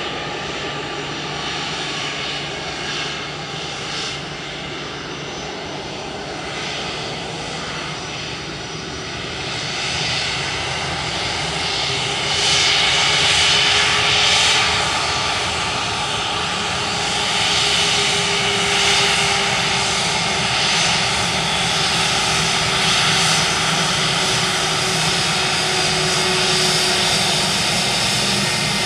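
Airbus A321-231 airliner's twin IAE V2500 turbofan engines running as it taxis onto the runway. The steady jet whine grows louder about ten seconds in.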